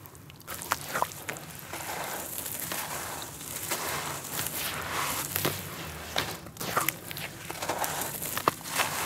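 Hands squeezing and crumbling wet, grainy red dirt in a tub of muddy water: a continuous gritty crunching and squishing, with a few sharp crackles now and then.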